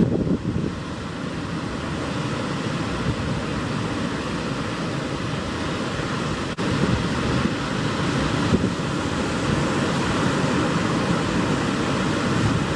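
Pacific Ocean surf breaking and washing over a rocky shore, a steady rush of water, with wind buffeting the microphone. There is a brief sudden dropout with a click about halfway through.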